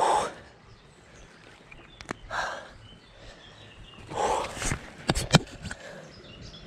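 Handling sounds by the stream's edge: a few short splashing rustles and several sharp clicks as the angler moves his hands and the landing net.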